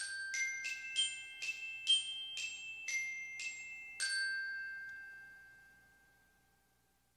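Bright, bell-like mallet-percussion jingle of the kind used for a subscribe-button animation: a run of quick ringing notes about two a second, then a final note about four seconds in that rings out and fades away.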